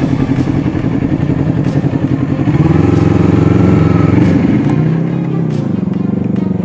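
Motorcycle engine running under way. Its note climbs about two and a half seconds in as the throttle opens, then drops back and evens out after about five seconds as the bike slows.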